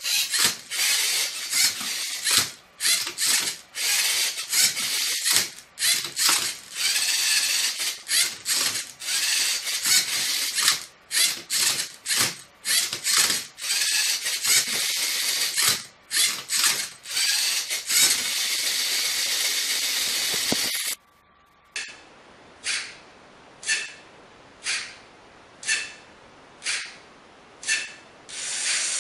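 LEGO Mindstorms NXT Rubik's Cube–solving robot at work: its motors whir in short, irregular bursts as the arm tips the cube and the turntable twists its layers, with plastic clicking and clattering. After a sudden cut about three-quarters through, shorter mechanical bursts come at a regular pace, less than a second apart.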